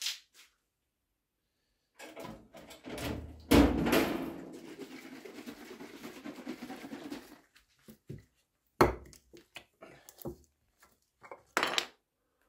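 Workshop handling sounds as a new bottle of oil is fetched: a few knocks and a loud thunk about three and a half seconds in, a few seconds of rummaging and scraping, then several sharp clicks and taps.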